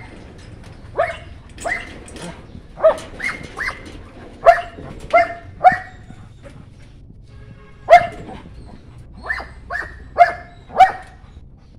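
White German Shepherd puppy barking: about a dozen short, fairly high-pitched barks in quick pairs and threes, with a pause of about two seconds midway.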